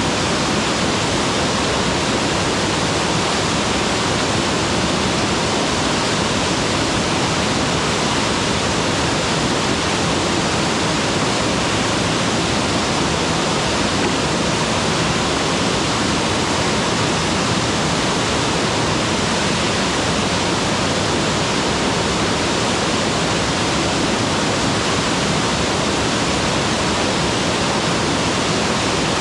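Mountain waterfall: water pouring and crashing in a loud, steady, unbroken rush.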